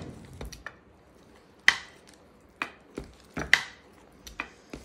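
Wheel pizza cutter clacking and scraping against a metal pizza pan while slicing a pizza: a string of sharp, irregular clicks and knocks, the loudest about a second and a half in.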